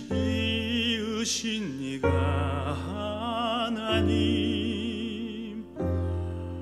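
A male classical singer singing a Korean hymn in an operatic style, with wide vibrato on long held notes. Under the voice, the accompaniment's low notes are re-struck about every two seconds.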